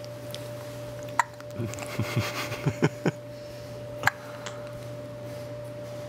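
Baby hiccuping: sharp, short hics about a second in and about four seconds in, with a quick run of short low sounds between them.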